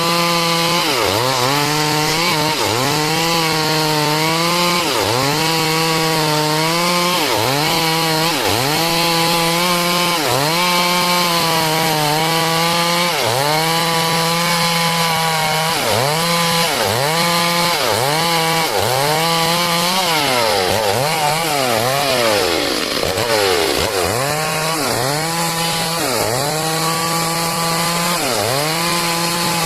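Stihl MS 382 two-stroke chainsaw running under load as it rips a log into boards, its engine pitch dipping and recovering about once a second.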